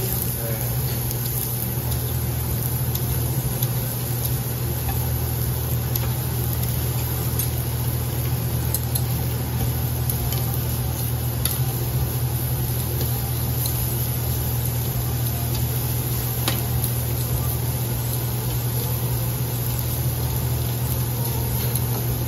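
Pork sizzling on a tabletop barbecue grill plate over a steady low hum, with a few sharp clicks of metal tongs and scissors against the plate.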